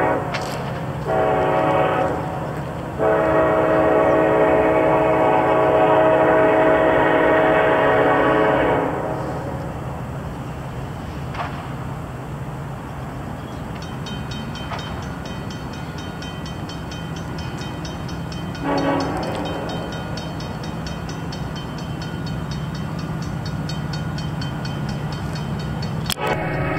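Multi-chime air horn of an approaching Norfolk Southern freight locomotive: a couple of short blasts, then one long blast of about six seconds, and a short toot again about 19 seconds in, over a steady low rumble.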